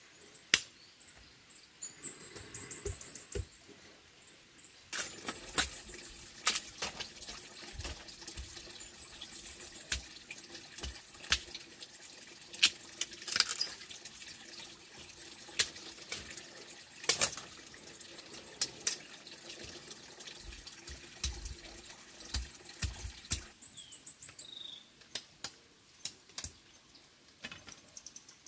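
Water running and splashing, with scattered clicks and knocks throughout, as of something being handled in water.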